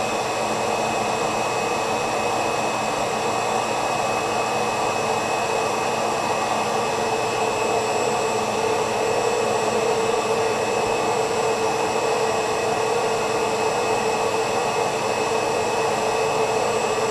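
A 14-gallon, 4.5-horsepower wet/dry shop vac running steadily: a constant motor whine with the rush of suction air.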